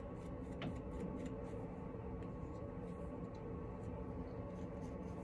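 Faint scratching and small ticks of a plastic comb picking through braid roots, over a steady low room hum.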